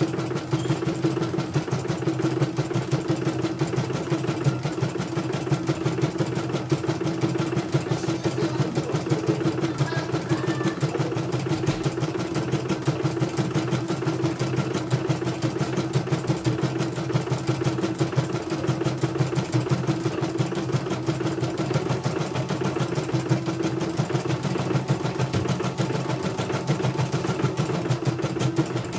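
Elyana computerized embroidery machine stitching steadily, its needle bar running at a rapid, even pace as the hoop moves under it. This is a test run during servicing for a bobbin case that kept jumping out, and the machine is stitching without interruption.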